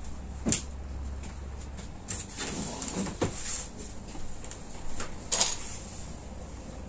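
A few short knocks and clatters with light rustling, from clothes and storage being handled while laundry is put away. The sharpest knocks come about half a second in and about five seconds in.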